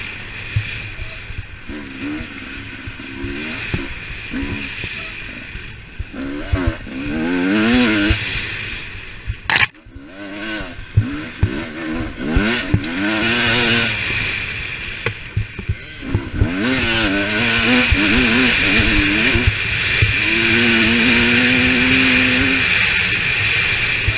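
Dirt bike engine, heard from a helmet-mounted camera during a race, revving up and falling off again and again as the rider accelerates and backs off through corners and over bumps, with knocks and clatter from the gravel track. One sharp crack comes just before ten seconds in, followed by a brief drop in the engine sound.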